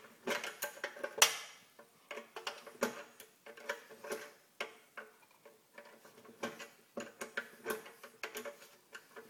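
Ratchet wrench clicking in short, irregular runs of several clicks a second as a tight carburetor mounting bolt on a small Briggs & Stratton engine is worked loose, with a louder metal clack about a second in.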